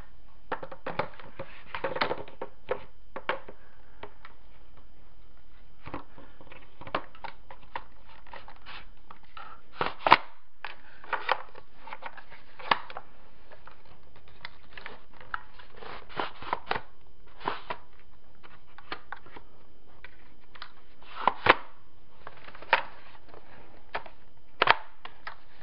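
Irregular clicks and knocks of the plastic parts of a G&G F2000 airsoft rifle being handled and fitted together during reassembly, with a few sharper snaps about ten seconds in and near the end.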